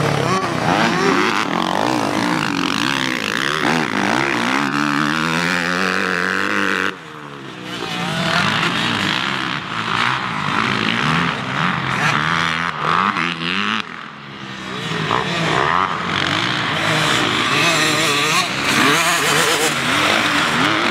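Kawasaki KX250F single-cylinder four-stroke motocross bike revving up and down as the rider works the throttle around the track, the engine note rising and falling over and over. The sound drops away sharply about seven seconds in and dips again around fourteen seconds before building back up.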